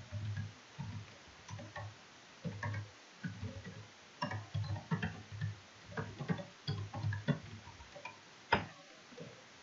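Typing on a computer keyboard: irregular runs of keystroke clicks, each with a dull knock, and one sharper, louder keystroke near the end.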